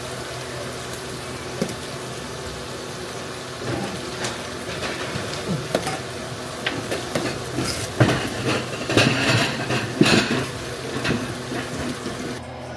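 Burgers and onions frying in a pan under a steady hiss, with a cooking utensil scraping and knocking against the pan. The clatter starts a few seconds in and is loudest just past the middle.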